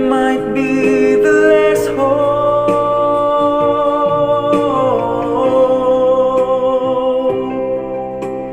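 A young man sings a slow ballad line to his own electronic keyboard accompaniment, holding one long note about two seconds in; near the end the keyboard carries on with the voice silent.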